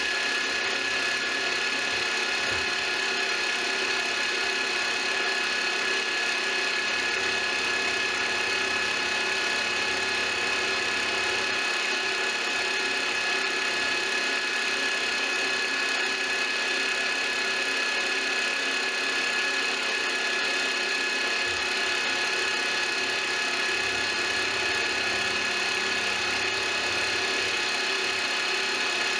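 Manual milling machine running steadily with a steady whine from the spindle drive, while an end mill takes a light finishing pass along the side of an aluminum extrusion.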